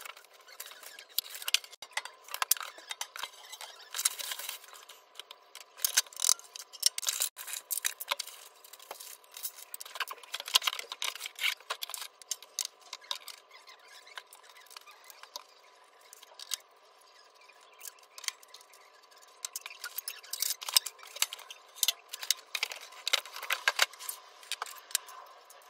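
Irregular clattering, clicking and knocking as the white steel frame pieces of an IKEA TROTTEN flat-pack unit and its cardboard packaging are handled and fitted together. The knocks come in clusters, with a quieter stretch around the middle.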